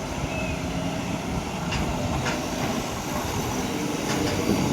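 JCB 3DX backhoe loader's diesel engine running steadily while the machine works, with a few sharp metallic knocks about two seconds in and again near the end.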